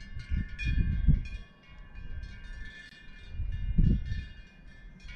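Wind gusting on the microphone in low rumbles, strongest about a second in and again near four seconds, over the steady irregular ringing and clanking of cowbells on an alpine pasture.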